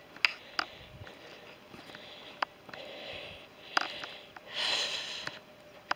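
Footsteps on a dry, stony downhill path, heard as a few scattered sharp scuffs and clicks, with a sniff close to the microphone about three-quarters of the way through.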